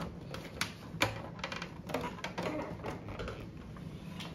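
A few scattered light clicks and knocks of plastic as the side housing of a Dorina 710 overlock machine is handled and pushed into place.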